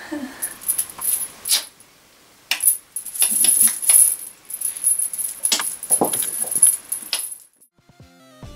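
A metal chain rattling and clinking in repeated jingly bursts as it is shaken and pulled by hand, stopping about a second before the end; music starts right at the end.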